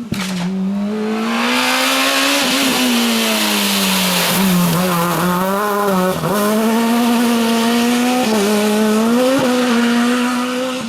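Naturally aspirated four-cylinder rally car driven hard, its engine held high in the revs with several brief dips where the driver changes gear or lifts. A hiss runs alongside it through the first half.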